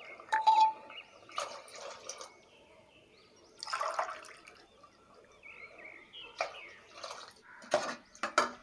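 Water poured from a tumbler splashes into a pot of chicken gravy in a few short pours. Near the end a ladle stirs and clinks against the metal pressure cooker pot.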